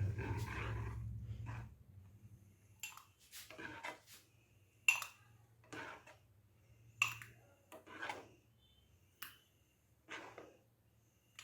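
A spoon scraping and tapping against a cooking pan as besan sheera is spooned out into a bowl, with irregular clinks, some ringing briefly. A low hum drops away about two seconds in.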